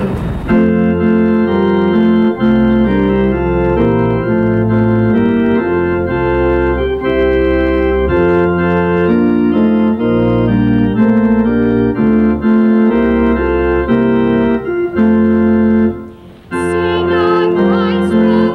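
Church organ playing slow, sustained hymn chords. Near the end, after a brief dip, singing voices join the organ.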